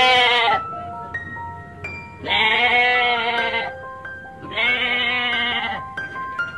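An animal bleating three times, each call long and quavering, over background music of short, light keyboard-like notes.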